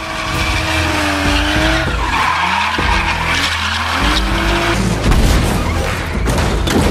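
Car engine revving with tyres skidding, over a music bed with a steady deep bass.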